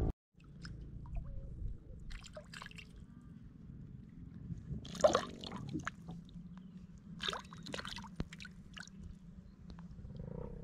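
A hooked palometa splashing at the water surface in a few short bursts, over a low steady rumble.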